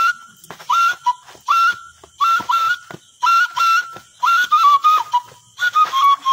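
A high whistled tune in short repeated phrases, about one a second, each leaping up to a held note and then stepping down, with sharp clicks between the phrases.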